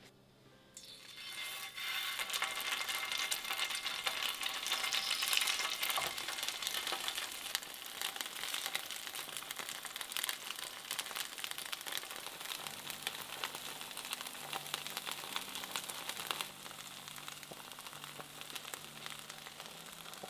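Patties frying in a square nonstick pan, sizzling and crackling with many fine pops. The sizzle starts about a second in and eases to a softer sizzle near the end.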